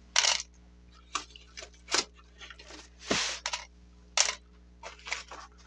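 Stick pins being pulled one by one from a dried, starched crocheted doily pinned over plastic sheeting: a string of light, scattered clicks and ticks about once a second, with a longer scratchy sound about three seconds in.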